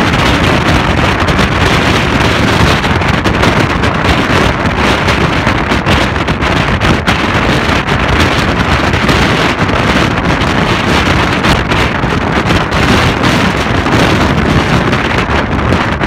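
Strong wind buffeting the microphone, loud and continuous, over heavy storm surf breaking on the shore.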